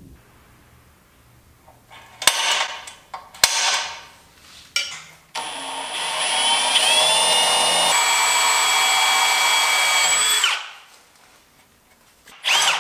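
Cordless drill boring a hole through the metal rear bar: a few short bursts as the bit bites, then about five seconds of steady drilling with a high whine that cuts off, and a fresh run starting just before the end.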